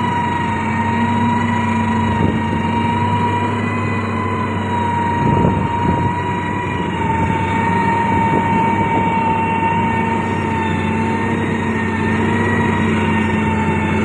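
Diesel engine of a SANY STG190C-8S motor grader running steadily under load as it pushes clay, with a constant high whine over the engine note. About five seconds in, a short rough crunch of earth and rock.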